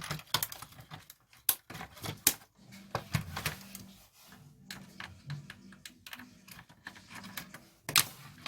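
Irregular clicks and knocks of a cassette tape recorder's plastic and metal parts being handled and pulled apart during disassembly.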